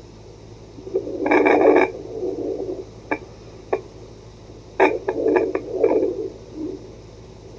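Home fetal Doppler's speaker output: a steady hiss and low hum broken by irregular swishing bursts and sharp clicks, with no steady heartbeat rhythm.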